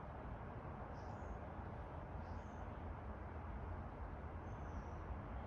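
Quiet steady background hiss and low rumble, with three faint, short high chirps about a second, two and a half seconds and near five seconds in.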